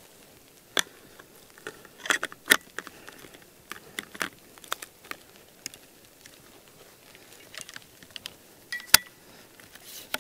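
Irregular sharp clicks and light rattling, a dozen or so scattered through, with the sharpest click about nine seconds in.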